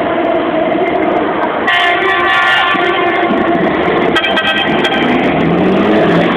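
Air horns sounding in steady blasts, one starting a little under 2 seconds in and another about 4 seconds in, over a Dakar rally truck driving past. The truck's low engine note falls as it goes by.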